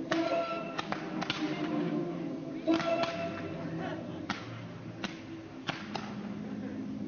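Firework shells bursting overhead: about ten sharp, irregular cracks, the loudest nearly three seconds in, with music playing underneath.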